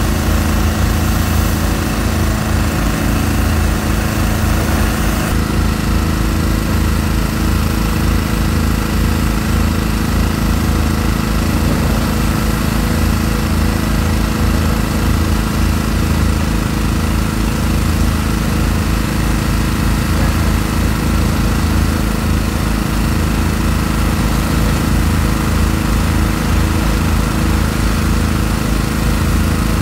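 Steady engine drone of demolition machinery: a high-reach demolition excavator working on a concrete tower block. The tone shifts about five seconds in.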